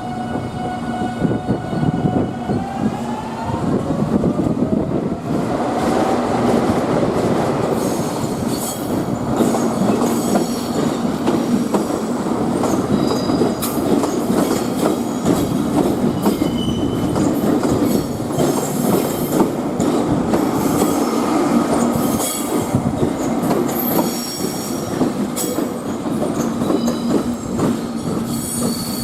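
Electric multiple-unit train moving through the depot's tracks. Its motors whine upward in pitch over the first several seconds as it gathers speed. After that the wheels rumble and clack over the rail joints and points, with short high-pitched flange squeals coming on and off.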